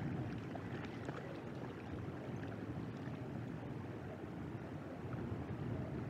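Steady, low rumbling wind noise on an outdoor microphone, with a few faint high ticks about a second in.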